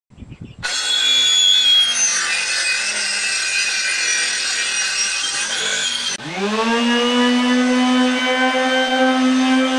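Cordless circular saw cutting through a plywood sheet. About six seconds in it cuts off abruptly, and a palm sander starts up, its hum rising in pitch as the motor spins up and then running steadily.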